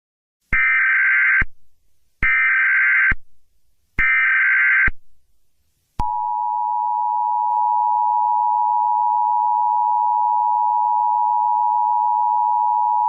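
Emergency Alert System tones: three short bursts of SAME header data, each under a second long, then, from about six seconds in, the steady two-tone EAS attention signal. This is the sequence that announces an emergency alert message is about to be read.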